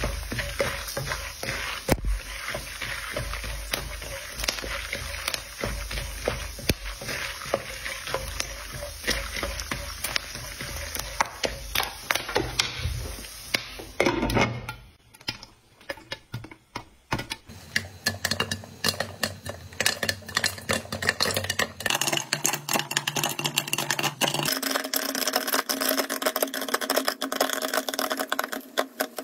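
Popcorn kernels sizzling in hot oil in a nonstick wok, stirred with a wooden spatula. About halfway through, a glass lid goes on and the kernels start popping, a rapid crackle of many small pops that keeps up to the end.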